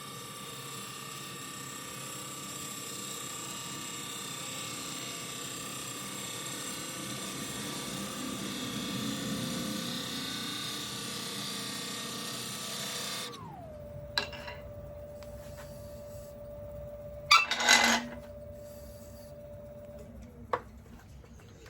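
Wood lathe running with a gouge cutting a spinning goncalo alves blank. The cutting stops about 13 s in, and the lathe's whine drops in pitch and holds lower until it stops near the end. A few knocks and clacks fall in the second half, the loudest about 17 to 18 s in.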